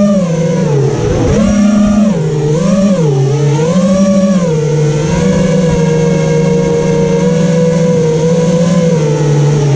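FPV freestyle quadcopter's brushless motors and propellers whining, the pitch swooping up and down several times with the throttle, then holding steady from about five seconds in.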